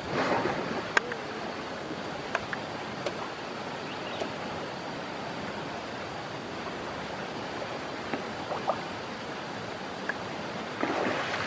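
Steady rush of a flowing river, with a few short sharp ticks standing out over it.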